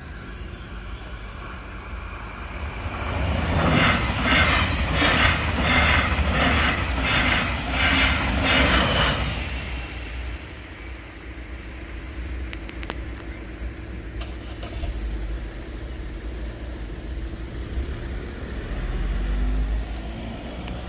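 A train passing over the level crossing, its wheels running by with a regular beat of about two strikes a second for some five seconds, then fading. Near the end a car pulls away across the tracks.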